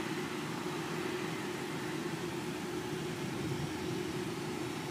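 Distant jet airliner engines running while the aircraft wait on the runway and taxiway: a steady rumbling hiss with a faint constant hum.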